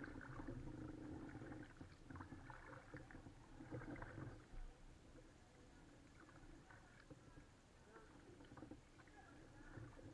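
Faint kayak paddling: paddle blades dipping and dripping, with water lapping at the hull, a little louder in the first few seconds.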